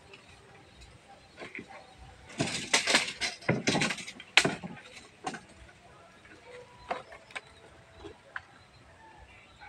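Clicks and clattering knocks from a steel tape measure and the plywood sheet it lies on, worked with bare feet: a dense run of them from about two to five seconds in, then a few single clicks.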